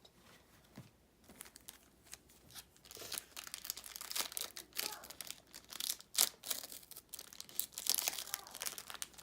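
Trading card pack wrapper being torn open and crinkled, starting about three seconds in and going on in quick, sharp crackles.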